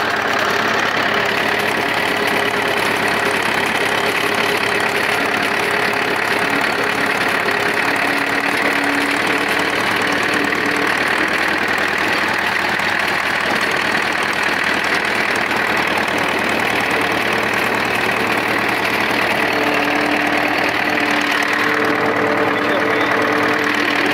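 Ursus tractor's diesel engine running steadily as the tractor drives along, heard from the driver's seat.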